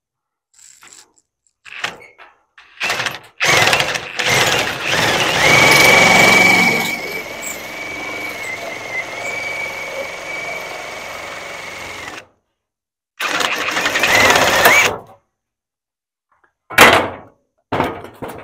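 A power tool runs in bursts, most likely cutting stock for the pieced panel. The longest burst lasts about nine seconds, settling into a steady whine over its second half. A shorter burst follows, then a few brief knocks near the end.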